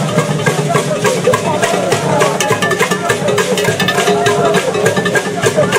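Drum and percussion music with dense, rapid hits and a wavering melodic line over them.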